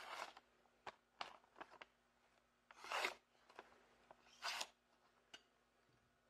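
Freshly sharpened Bowie knife slicing through a hand-held sheet of paper, a paper-cutting test of the edge: a handful of quick crisp slicing strokes with paper rustle, the two loudest about three and four and a half seconds in.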